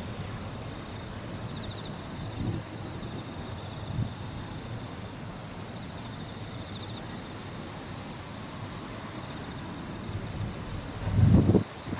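Insects chirring steadily over a low hiss, with two soft low thuds and a louder low rumble swelling near the end.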